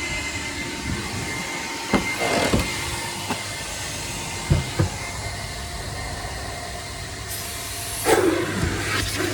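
1985 Karcher coin-operated car-wash vacuum running steadily with a low hum while it sucks at the car's interior. A few sharp knocks about two and four and a half seconds in, and a brief high hiss near the end.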